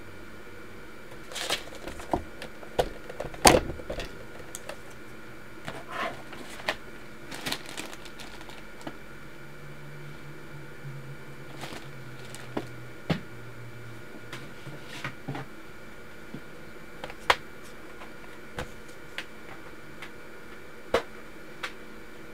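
Irregular light taps, clicks and short rustles from a sheet of loose-leaf paper being handled and shifted on a desk, the sharpest knock about three and a half seconds in. A faint low hum comes and goes in the middle.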